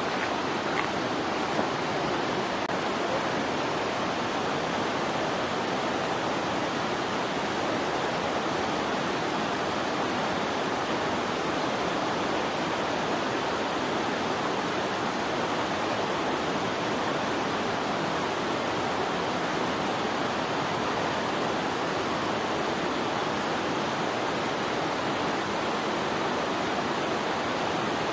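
Steady, even rushing noise with no distinct events, of the kind made by running water.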